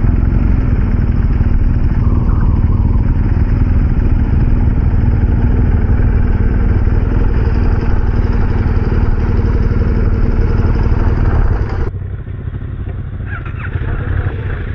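BMW 1250 GS adventure motorcycle's boxer-twin engine running steadily. About twelve seconds in the sound cuts abruptly to a quieter one.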